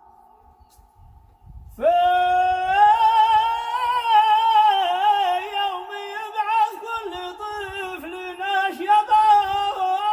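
Unaccompanied male voice chanting a Yemeni religious tasbih: after a short near-silent pause, one long held vowel line begins about two seconds in, with wavering melismatic ornaments and turns.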